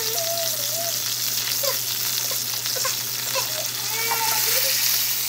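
Beef rump roast searing in hot fat in a frying pan: steady sizzling with fine crackles of spattering fat.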